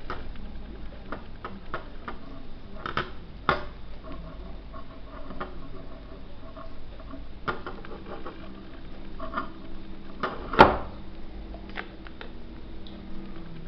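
Scattered light clicks and taps of small objects being handled on a dental-lab workbench, with one sharper knock about ten and a half seconds in, over a low steady hum.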